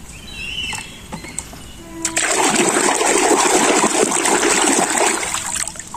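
Water splashing over a toy being rinsed of mud. The splashing starts sharply about two seconds in and dies away shortly before the end.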